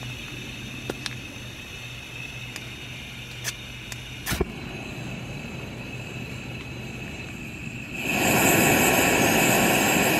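Hose-fed portable gas stove burner: a few sharp clicks, then about eight seconds in the burner lights and runs with a loud, steady rushing hiss.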